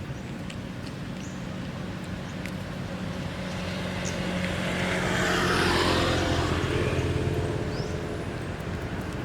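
A motor vehicle passing by on the road: its engine and tyre noise grow louder, peak about six seconds in with a falling pitch, then fade away.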